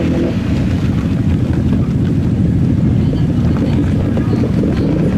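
ATV or UTV engines running steadily and loudly.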